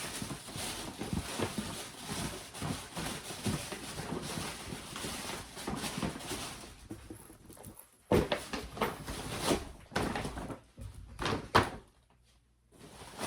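Rustling and scraping of toiletry items and packaging being handled and put into place, with a few sharper knocks and clatters about two thirds of the way through.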